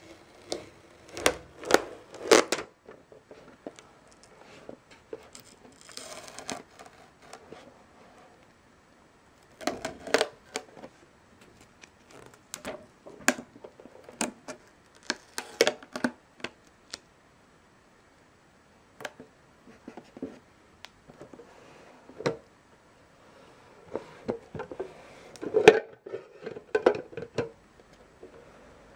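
Hands handling a GoPro camera's retail packaging, a clear plastic display case on a cardboard box. Clusters of plastic clicks, taps and knocks are heard, with a brief scraping rustle about six seconds in.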